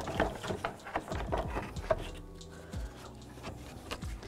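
Plastic cooling-fan shroud knocking and scraping against the radiator and engine-bay parts as it is twisted and worked free: a string of light, irregular knocks and clicks over a soft rubbing.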